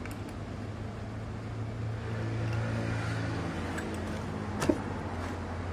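Steady low hum of a running engine, a little louder about two to three seconds in, with one sharp knock near the end.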